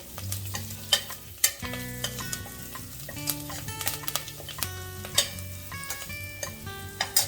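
Chopped onions sizzling as they fry in oil in a pressure cooker, with a spoon knocking and scraping against the metal pot at irregular moments as they are stirred. Background music with changing pitched notes plays underneath.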